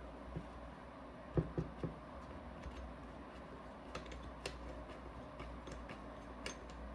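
Scattered light clicks and taps of small metal parts and tools being handled during a paintball marker teardown, over a low steady hum.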